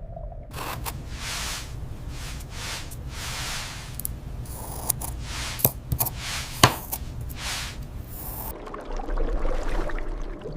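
A series of rough scraping strokes, about one or two a second, with a couple of sharp clicks near the middle; the strokes stop near the end, leaving a low hiss.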